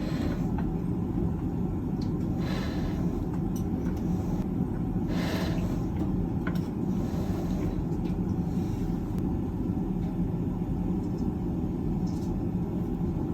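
Harley-Davidson Milwaukee-Eight 107 V-twin, fitted with S&S 465 cams, running steadily at an even pitch after the cam-chest install.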